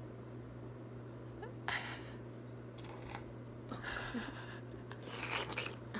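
A woman's quiet, breathy laughter in several short bursts, the longest near the end, over a steady low hum.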